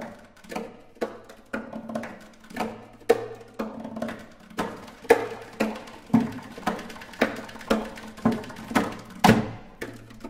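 Four classical guitars played as percussion, struck on their wooden bodies with fingers and fingernails in a steady pulse of about two strokes a second, each knock ringing briefly in the hollow body, with one louder strike near the end.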